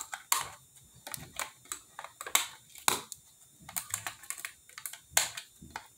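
Scissors snipping open clear plastic toy packaging: a string of irregular sharp snips and clicks, a few a second.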